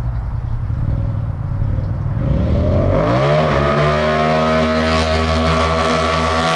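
Two Polaris RZR Turbo R side-by-sides idling and blipping their turbocharged engines at the start line, then revving up together about two and a half seconds in and holding a steady high engine pitch as they pull off the line in a drag race.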